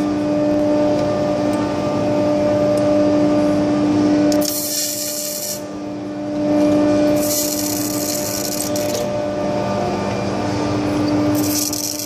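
The electric drive motor of a Raymond 8400 pallet jack runs with a steady hum. Three spells of harsh, high-pitched crackling hiss break in, about four and a half seconds in, about seven seconds in and near the end, as the failing motor sparks and arcs under throttle.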